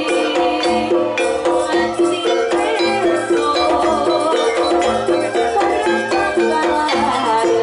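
Jaranan ensemble music playing: a steady, repeating pitched pattern over regular drum and percussion strokes, with a rattling, jingling layer.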